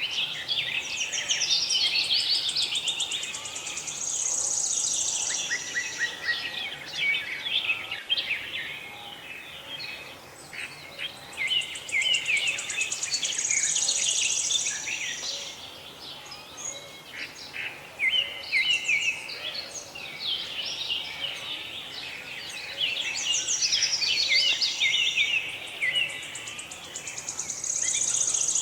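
A dense chorus of small songbirds chirping and twittering without a break. A high, fast trill stands out over the chorus and returns about every ten seconds.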